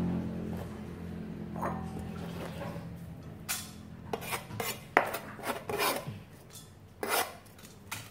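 A run of short scrapes and knocks of a kitchen cleaver and hands on a plastic cutting board, clearing away cut glass noodles, with one sharp knock about five seconds in. Background music fades out in the first few seconds.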